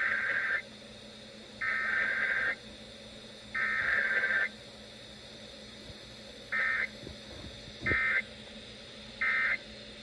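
Emergency Alert System data tones from an FM broadcast, played through a clock radio's speaker, for a Required Weekly Test. Three warbling digital SAME header bursts of about a second each come roughly a second apart, and the first is already under way at the start. Then three short end-of-message bursts follow, the last near the end.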